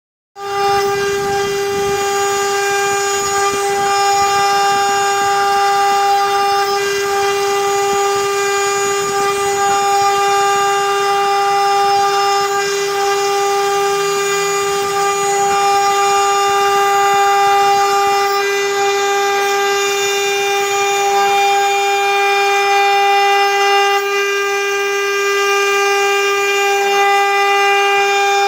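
CNC router spindle running at a constant high speed, a steady whine with many overtones over a light hiss of the bit cutting tamarind heartwood.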